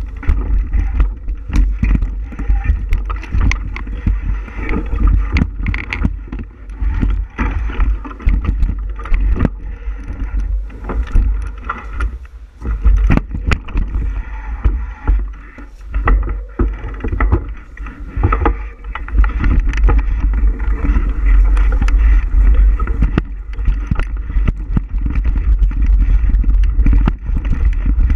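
Wind buffeting the microphone of a camera riding on a moving bicycle, a heavy, continuous low rumble, with frequent clicks and knocks from the bike rattling as it rolls along the trail.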